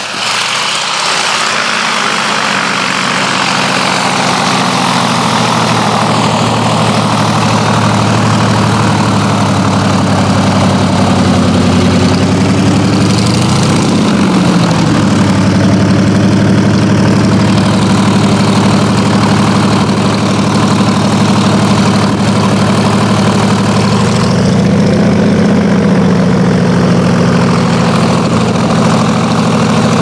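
PZL-104 Wilga tow plane's nine-cylinder radial engine running on the ground at low revs with the propeller turning. The revs rise and settle briefly about halfway through, and again a few seconds before the end.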